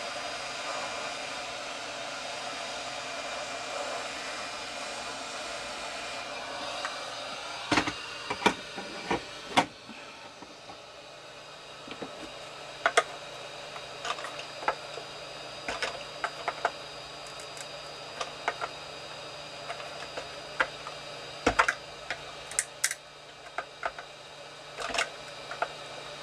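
A hot-air heat gun blows steadily, heating the resin glue so that it will break free, and shuts off about ten seconds in. Sharp clicks and taps of a small screwdriver prying at the plastic begin shortly before it stops and go on irregularly afterwards.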